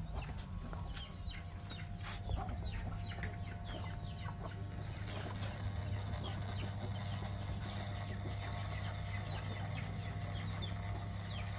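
Corded electric hair clippers run with a steady hum as they trim a beard close, under a continual clucking and chirping of chickens.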